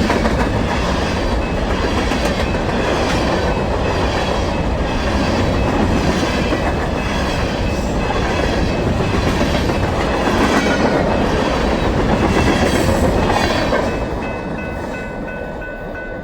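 Freight train cars rolling past at speed: steady wheel-on-rail noise with a clickety-clack of regular beats about once a second. The rail noise falls off about fourteen seconds in as the end of the train nears, and a steady high-pitched ringing comes through.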